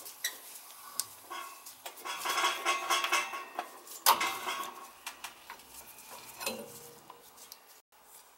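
Sheet-metal vent pipe and draft hood on a gas water heater clinking and scraping as they are pushed together, with a sharp metal knock about four seconds in.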